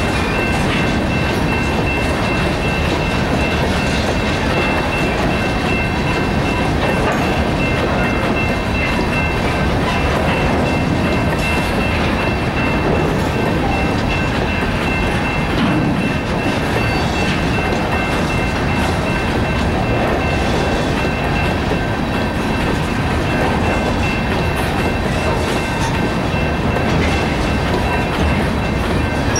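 Freight train of open-top hopper cars rolling through a level crossing: a steady clatter and rumble of steel wheels over the rail joints and crossing. A thin steady high tone runs above the rumble.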